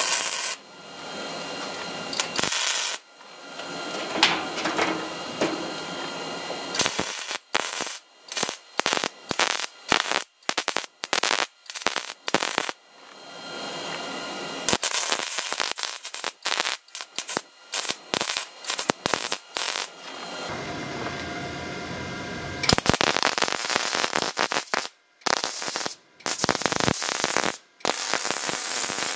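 MIG welder arc crackling as pieces of forged scrap steel are welded together, in many short bursts of a second or less with a few longer runs, each starting and stopping sharply.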